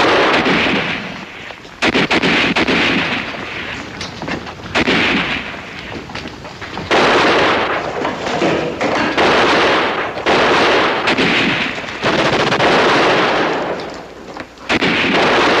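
Battle sound effects: gunfire with machine-gun bursts, over repeated loud rushing blasts of noise, each lasting a second or two.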